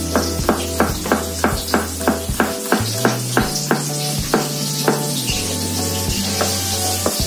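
Kitchen knife chopping red chillies and tomato on a plastic cutting board, a quick run of knocks about three to four a second that thins out for a couple of seconds and then resumes, over background music.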